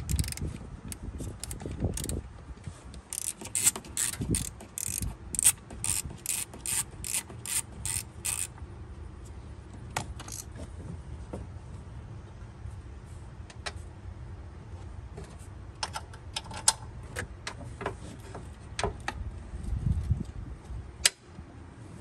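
Socket ratchet clicking as it backs out the top bolt holding a coil pack: a steady run of sharp clicks, about three a second, starting a few seconds in and lasting about five seconds. Scattered clicks and knocks of tool and parts handling follow.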